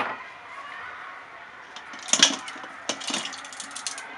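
Ice cubes clinking against a stainless steel bowl of ice water as ice is dropped in and moved about by hand: one sharp clink at the start, then quick clusters of clinks about two seconds in and again near the end.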